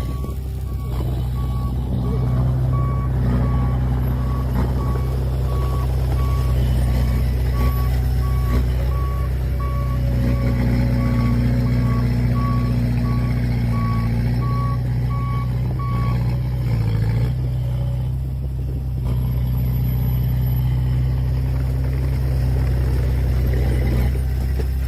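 Heavy diesel construction vehicle running with a steady low drone while its reverse alarm beeps at an even pace. The beeping stops about two-thirds of the way through and the engine keeps running.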